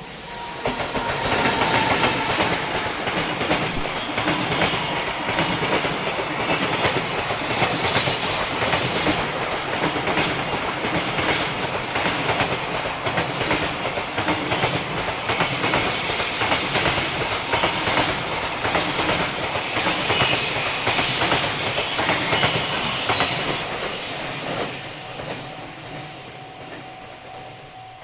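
JR Freight freight train passing at speed, its wagons' wheels clicking rapidly over the rail joints. It comes in loud about half a second in and fades away over the last few seconds.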